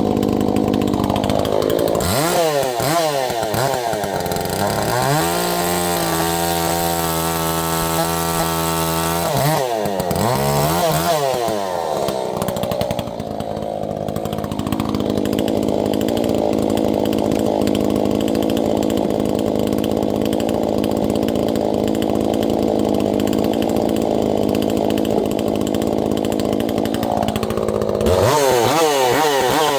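Two-stroke gas chainsaw running at high speed, its pitch wavering rapidly up and down in spells and held steady in between.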